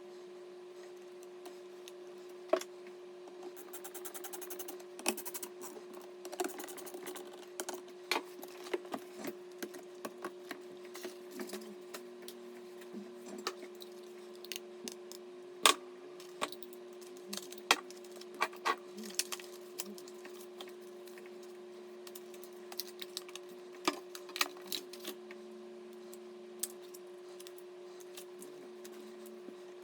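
Scattered clicks, taps and light knocks from computer parts and tools being handled during a PC assembly, with a short fast run of ticks about four seconds in, over a steady hum.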